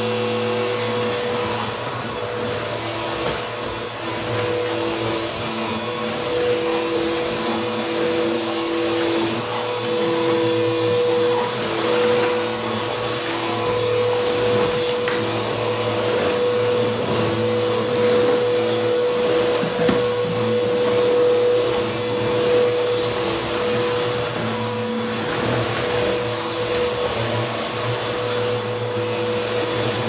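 Bissell CleanView upright vacuum cleaner running steadily as it is pushed back and forth over a dirty floor. Its motor holds a steady hum while crunchy debris crackles up through the nozzle.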